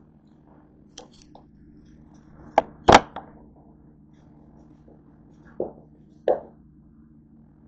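Several sharp knocks and clacks of things being handled, the loudest about three seconds in and two more near the end, over a steady low hum.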